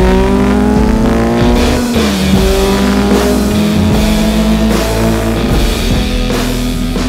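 Rock music with guitar and drums over an inline-four motorcycle engine accelerating: its note rises, drops sharply at a gear change about two seconds in, then climbs again.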